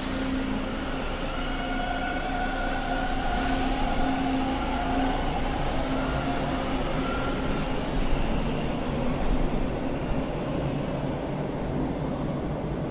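Subway train running: a steady rumble of the cars with a whine of several steady tones over it that fades out about halfway through, and a brief high hiss about three and a half seconds in.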